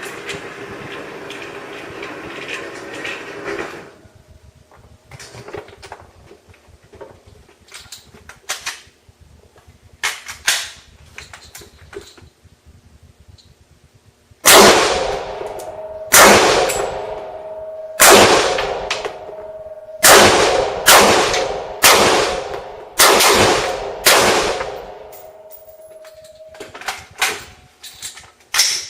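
AR-15 rifle firing about eight single shots, one to two seconds apart, starting about halfway in. Each shot is very loud and leaves a ringing echo. A steady whirring noise runs for the first few seconds.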